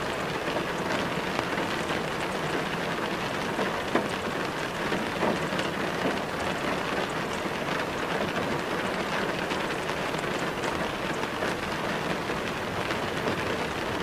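Steady rain falling: an even hiss with many small drop ticks.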